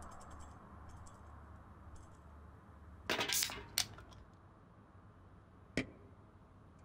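Aluminium drink can being opened: the tab cracks the seal with a short fizzing hiss, then clicks once just after. A single sharp click follows about two seconds later.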